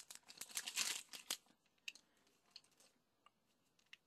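A small clear plastic bag crinkling as it is handled, for about the first second and a half, then a few faint clicks.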